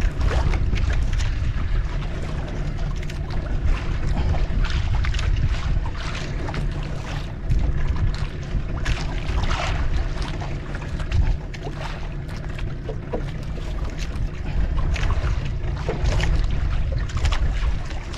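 Wind buffeting the microphone aboard a small fishing boat at sea: a steady low rumble with frequent short rushes of noise.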